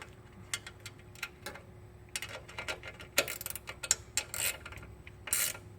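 Ratchet wrench clicking in short uneven runs as the brake stay bolt is tightened on a bicycle's rear wheel mounting. The clicks are loudest a little past the middle and near the end.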